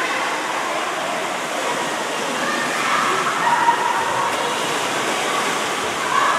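Water rushing steadily down open water-slide troughs, with children's voices over it about halfway through and again near the end.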